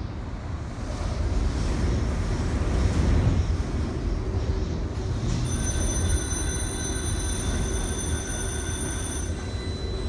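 Typhoon wind buffeting and storm-surge waves churning against a floodgate make a heavy, steady low rumble that swells a couple of seconds in. About halfway through, a high, steady, bell-like ringing joins in and cuts off near the end.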